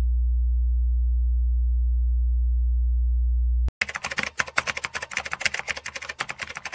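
A steady, deep sine tone that cuts off abruptly about three and a half seconds in. A dense, rapid, irregular crackle of clicks follows.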